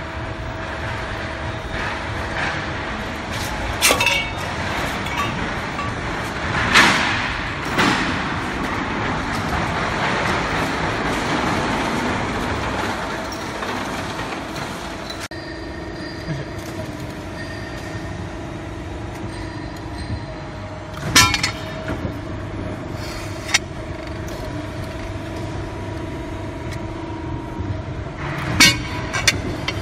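Steady hum of a CNC hydraulic press brake running, broken by a few short, sharp metallic clanks of steel sheet being handled.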